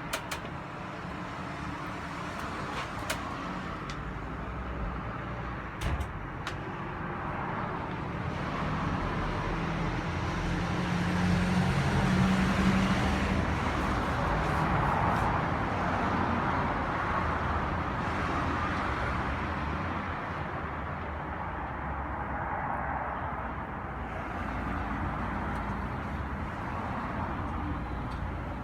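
Road traffic going by, a steady rush that swells to its loudest about halfway through and then slowly eases, with a few light clicks in the first few seconds.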